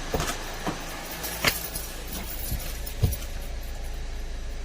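A few sharp clicks and clinks, then a low steady hum of the Kia Sportage R's engine running, which sets in about a second and a half in.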